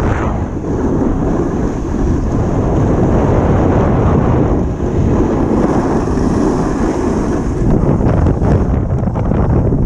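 Wind buffeting the microphone: a loud, rough rumble that rises and dips unevenly.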